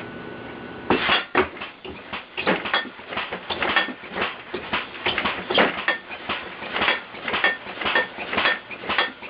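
A compressed-air-driven, computer-controlled alarm contraption going off: a rapid, uneven clatter of clanging blows, about two to three a second, with a ringing tone after each. It starts suddenly about a second in.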